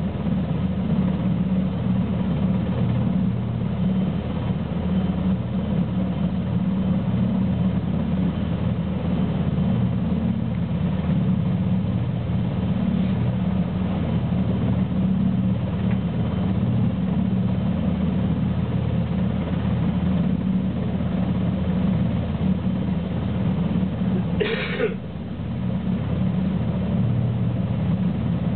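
NH90 helicopter ground-running on a ship's flight deck: the steady sound of its twin turboshaft engines and turning main rotor. A brief separate noise cuts in near the end.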